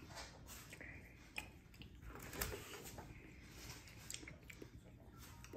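Faint clinks and scrapes of a metal fork against a plate as rice is scooped up, a handful of light taps spread over several seconds.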